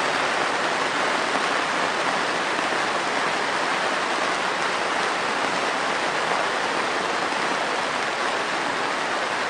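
Heavy rain drumming steadily on a greenhouse roof, a dense, even hiss with no separate drops standing out.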